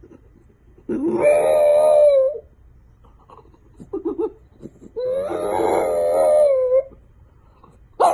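A dog howling: two long howls, each rising in pitch and then held, with a few short whines or yips between them about four seconds in.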